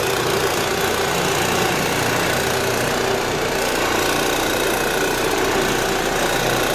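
Square Scrub oscillating floor machine running steadily, its pad scrubbing off the old polyurethane finish on a hardwood floor, with a constant motor hum and vibration.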